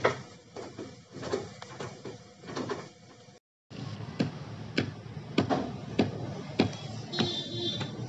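Knocks and taps from hands-on building work: scattered knocks at first, then, after a brief break, a steady run of sharp knocks about one every 0.6 seconds.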